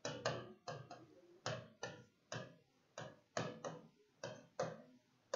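Marker pen writing on a whiteboard: short, faint scratching strokes in an uneven rhythm, about two or three a second.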